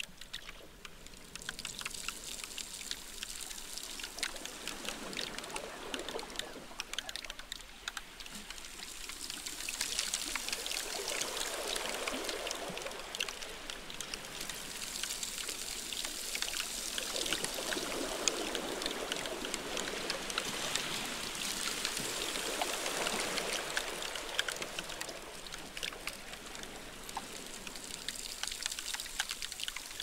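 Melting glacier ice heard through contact microphones buried in it: a dense, continuous crackle of tiny pops and fizzing as the ice melts, over a watery rushing that swells louder twice in the middle and fades again.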